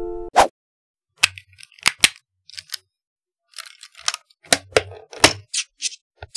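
Hard plastic LEGO Technic parts clicking and clacking as they are handled and fitted together: a series of separate sharp clicks with short gaps between them, the loudest about half a second in and a cluster around four to five seconds in.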